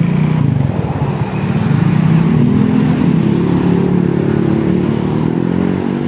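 Honda Vario scooter's single-cylinder four-stroke engine, breathing through a newly fitted SKR aftermarket racing exhaust, pulling away and accelerating on a test ride, its pitch rising from about two seconds in.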